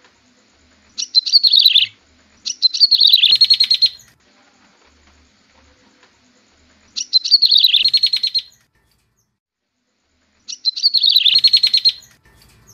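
Prenjak tebu (a prinia) song played as a bird-lure call: four bursts of fast, falling, high chirps, each about a second long, separated by short pauses.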